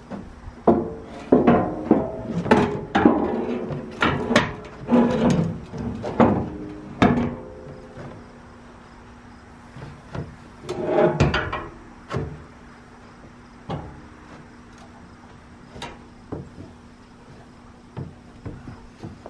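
Boss HTX snowplow blade being rocked and shifted on its frame in a pickup bed: a run of clunks and knocks with short metallic ringing through the first seven seconds, another burst about eleven seconds in, then occasional single knocks.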